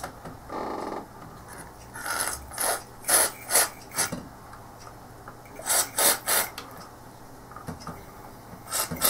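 Aerosol contact cleaner sprayed through an extension tube onto the monitor's switches and connections, in a string of short hisses with a pause in the middle.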